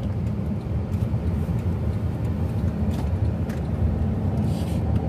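Steady low road and engine rumble inside a moving car's cabin, with a couple of faint clicks about three seconds in and a brief hiss near the end.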